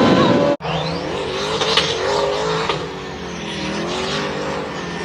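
Motorcycle engine running, its pitch wavering slowly up and down, after a sudden cut from louder noise about half a second in.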